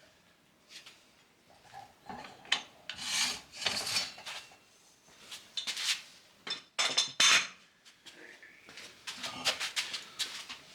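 Metal clanking and scraping as the mounting assembly is taken off a manual tire changer, in irregular bouts with a few sharp knocks.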